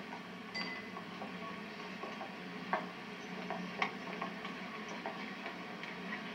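Quiet banquet-hall room sound: scattered light clicks and clinks over a steady low hum, with a few sharper clicks about half a second, three seconds and four seconds in.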